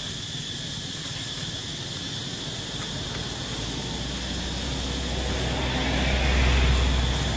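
A road vehicle driving past, its low rumble growing louder through the middle and loudest a little before the end, then easing off. Behind it runs a steady high drone of insects.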